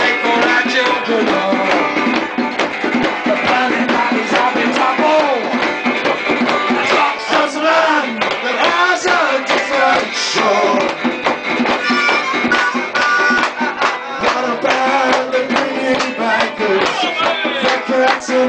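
Live band playing a song: singing over drums and percussion.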